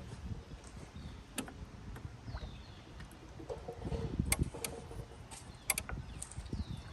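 Scattered clicks and light knocks as the brake pedal of a 2003 Ford F-350 is pumped slowly with the engine off, bleeding air out of a newly fitted master cylinder through lines looped back into its reservoir.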